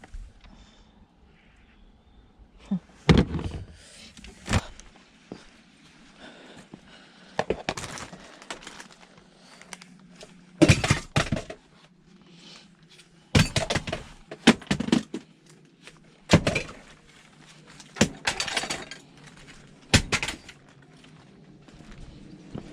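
Clatter and knocks of e-waste scrap being handled and set down, about ten sharp impacts one to three seconds apart, some followed by a brief rattle.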